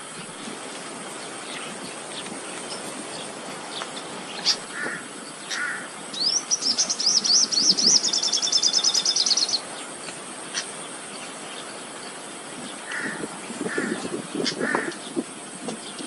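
Birds calling in an open field: a rapid, high chattering trill lasting about three seconds in the middle, with a few short lower calls before and after it, over a steady high-pitched background drone.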